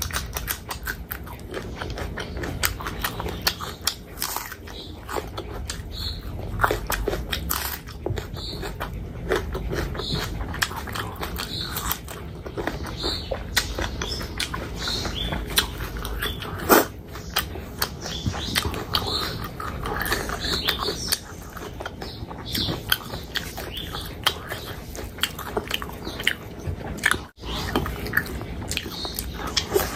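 Close-miked chewing and biting of pork pickle, rice and a green chilli eaten by hand: rapid wet mouth clicks and crunches, with one sharper crunch about 17 seconds in.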